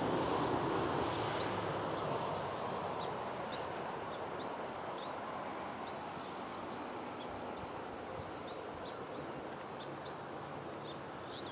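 Faint outdoor ambience: a steady hiss that slowly fades. Short, high chirps of a small bird come about once a second from about three seconds in.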